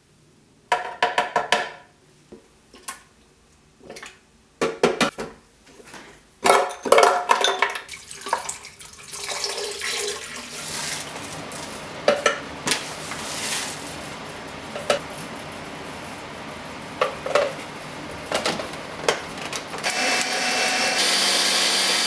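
Knocks, clinks and rattles as ingredients go into a plastic blender jar, then a steady rushing noise with a few clicks. Near the end the countertop blender starts and runs steadily.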